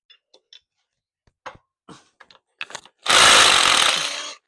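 Small impact wrench running for about a second and a half near the end, backing out one of the bolts that hold the clutch arm on. Before it, a few light clicks and taps of metal.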